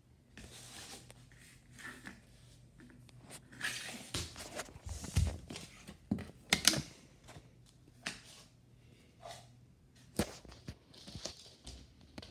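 Handling noise of someone moving about and searching: scattered rustling and light knocks, with a few sharper thumps about five, six and a half and ten seconds in.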